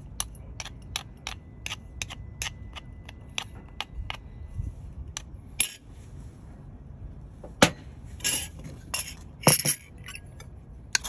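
A pestle striking in a wooden mortar, a quick even run of sharp knocks that thins out and stops about halfway through. Near the end, a louder knock and short scraping clatters as a metal spoon scrapes the mixture out of the mortar.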